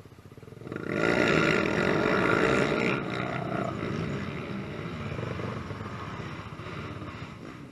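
Several quad ATV engines revving hard together at a race start line. The sound rises sharply about a second in, is loudest for a couple of seconds, then settles to a lower, steady running.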